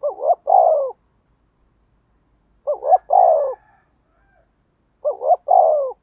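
Spotted dove cooing the rapid 'thúc gù' call that keepers use to excite wild doves. It gives three phrases about two and a half seconds apart, each two quick notes followed by a longer falling note.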